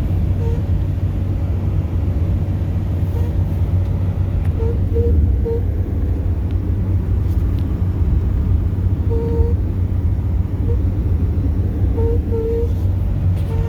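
Steady low rumble of a moving vehicle with about ten short, single-pitched squeaks coming at irregular intervals: an unexplained noise that the owner doesn't think is the speedometer cable.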